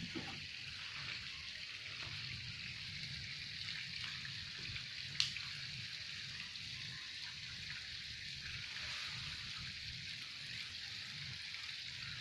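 Steady hiss of background noise with a low hum underneath and a single sharp click about five seconds in.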